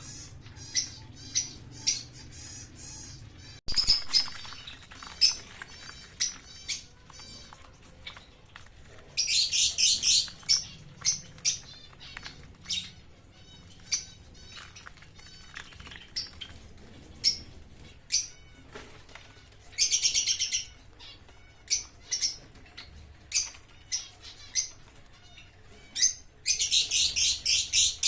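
Pet birds chirping: short, sharp chirps about once a second, with bursts of rapid chattering calls about nine seconds in, around twenty seconds, and near the end.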